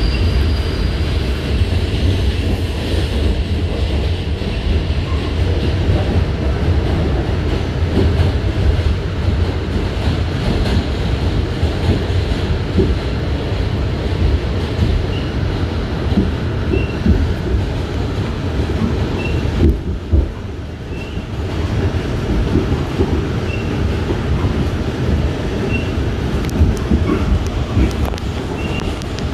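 A New York City subway train running on elevated track, heard from inside the car. It makes a steady low rumble, with the wheels clacking over the rails.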